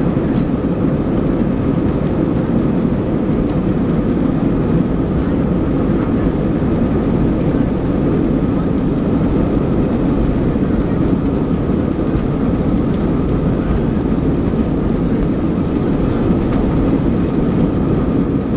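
Airbus A320's jet engines at takeoff power, heard from a window seat inside the cabin during the takeoff run and climb-out: a loud, steady rush of noise with a deep rumble and a faint steady hum.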